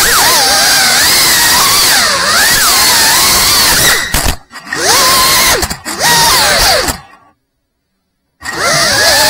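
FPV drone's brushless motors and propellers whining, the pitch rising and falling quickly with the throttle. The sound dips out briefly twice and goes silent for about a second near the end before the motors spin back up.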